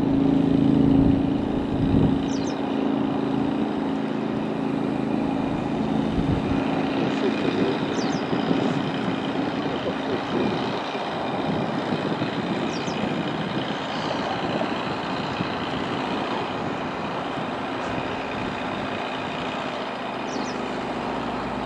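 Steady vehicle engine noise. A motor's hum is strongest in the first couple of seconds, and faint short high chirps come every few seconds.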